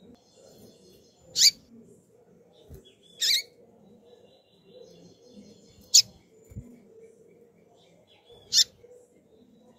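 Female double-collared seedeater (coleiro) calling: four short, sharp, high chirps spaced about two to two and a half seconds apart. Faint rapid twittering runs underneath.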